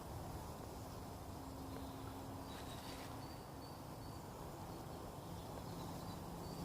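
Woodland ambience: a steady low rustling noise with short, thin, high bird notes repeating from about two and a half seconds in.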